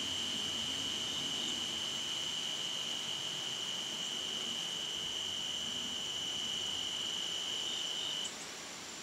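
An insect's steady high-pitched trill, one unbroken tone that cuts off suddenly near the end.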